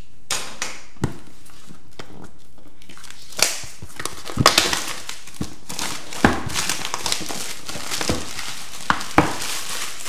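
Clear plastic shrink wrap crinkling and crackling as it is torn and peeled off a cardboard box, with a few sharp clicks at first and a busier stretch of crinkling from about a third of the way in.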